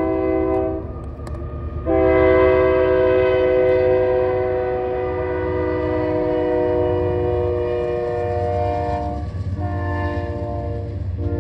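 Union Pacific freight locomotive's air horn blowing a sequence of blasts: one ends about a second in, then a long blast of about seven seconds, a shorter one, and another starting near the end. A steady low rumble of the approaching train runs underneath.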